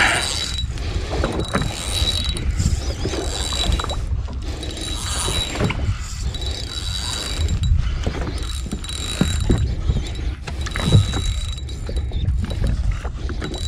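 Spinning reel cranked by hand in repeated spells about a second long, with short pauses between them and a thin high whine from the reel's gearing during each spell.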